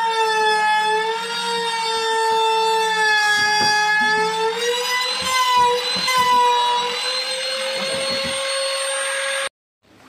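Handheld electric trim router running at full speed as it cuts into the top edge of a cabinet panel, likely routing the pocket for a hidden drawer lock. A high steady whine whose pitch dips and recovers slightly as the bit bites, with small clicks from the cut. It cuts off suddenly near the end.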